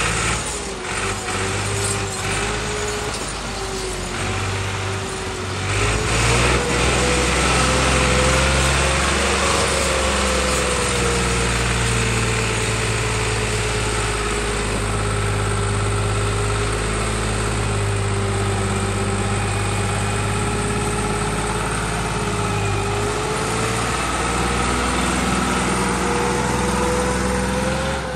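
Massey Ferguson 260 tractor's three-cylinder diesel engine running hard under heavy load, hauling a brick-laden trolley through mud with its front wheels lifting. The engine note holds steady, drifting slightly in pitch.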